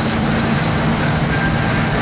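Fishing boat's engine running steadily while trolling: a constant low hum under an even rushing noise of wind and water.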